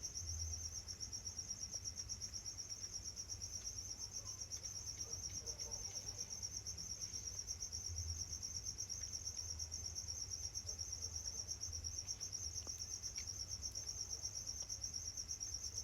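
A cricket trilling steadily, one high continuous pulsing note. A low rumble and a few faint clicks sound under it.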